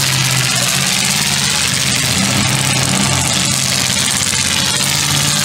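Unmuffled engines of full-size demolition derby cars running together at a loud, steady pitch under a dense hiss.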